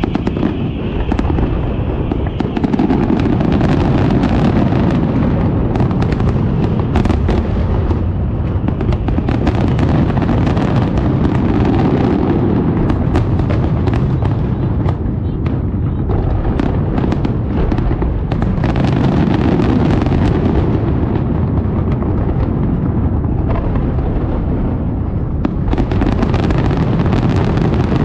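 Large fireworks display: a loud, unbroken barrage of booming shells and crackling bursts going off in quick succession.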